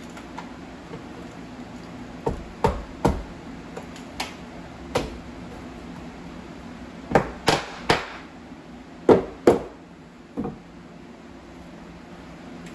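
About a dozen sharp knocks on wooden crown molding, spaced irregularly and partly in quick pairs and threes, as it is fitted and fastened against the ceiling. The loudest pair comes about nine seconds in.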